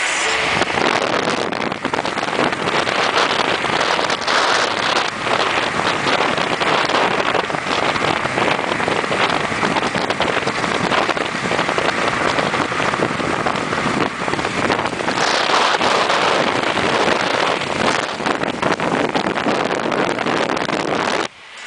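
Wind buffeting the microphone on a motorboat running at speed, a dense steady rush with crackling gusts over the engine and the water under the hull; it cuts off suddenly near the end.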